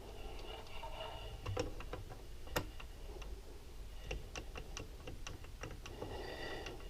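Scattered light clicks and taps of small metal engine parts and hand tools being handled on a workbench, with one sharper click about two and a half seconds in.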